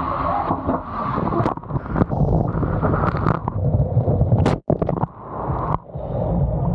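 Riding down a water slide with the camera held on the body: rushing water and wind noise on the microphone, broken by a few sharp knocks. Near the end it splashes through the slide's water-filled run-out.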